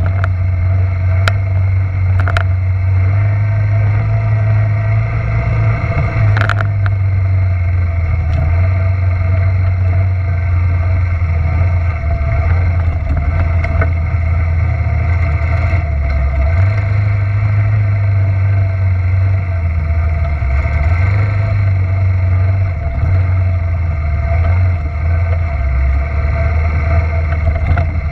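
Suzuki Quadrunner LT300 ATV's single-cylinder four-stroke engine running while being ridden. Its pitch steps up and down with the throttle, and a few sharp knocks come in the first several seconds.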